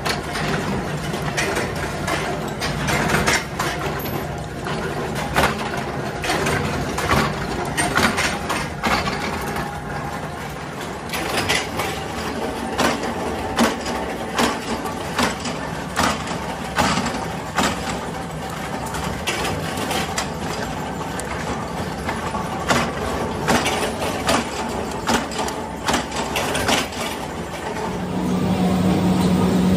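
Steel nut blanks clinking irregularly as they are handled and dropped into metal pans, over a steady hum of workshop machinery.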